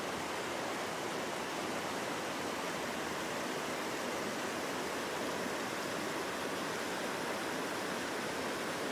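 Steady rushing water, an even unbroken roar without swells.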